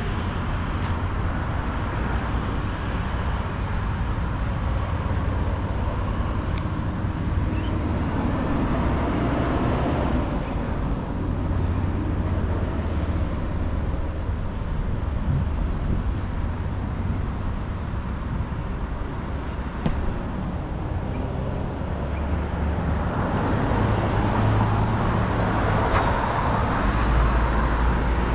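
Road traffic going by on a city street: a steady rumble and hum of cars, which swells as vehicles pass about nine seconds in and again near the end.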